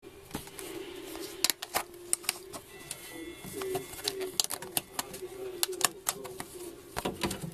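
Irregular sharp clicks and crackles, several a second, from a bosc monitor feeding on XL locusts on paper substrate, over a faint steady murmur.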